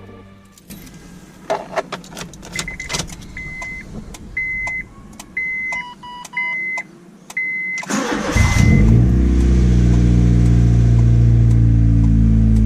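A few clicks and a run of about seven dashboard warning beeps. About eight seconds in, a Honda City 1.5 i-VTEC four-cylinder cranks, catches and settles into a loud, steady fast idle while cold, through a straight-piped exhaust with an HKS muffler.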